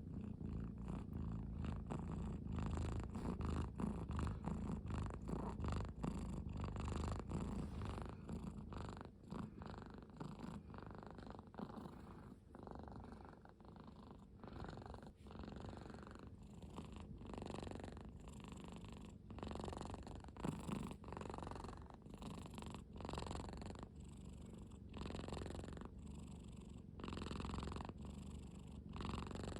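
Domestic cat purring, a deep, rough rumble that swells and eases with each breath in and out, steady throughout.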